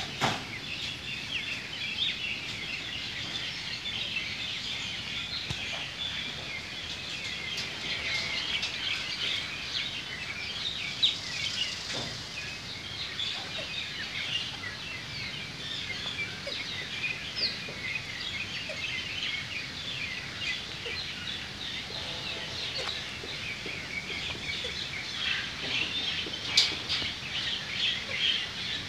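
A dense, continuous chorus of many small birds chirping and twittering, with a few brief sharp clicks.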